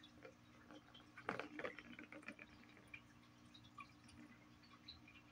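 Faint clicks and taps from a cat pawing a ball around a plastic ball-track cat toy (the turbo ball), with a short cluster of louder clicks about a second in, over a low steady hum.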